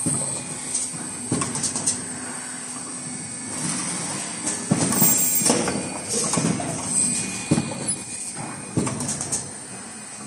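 Automated N95 cup-mask production line running: sharp mechanical clacks and knocks at irregular intervals over a steady machine hum and a thin high-pitched tone.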